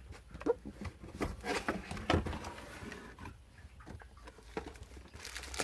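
Irregular rustling, clicks and knocks of computer-part packaging being handled and opened, with a few brief squeaky blips.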